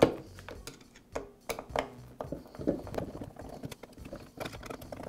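Screwdriver backing screws out of a portable band saw's handle: a string of irregular small clicks and knocks as the tool bit and fingers work against the screws and housing, the sharpest right at the start.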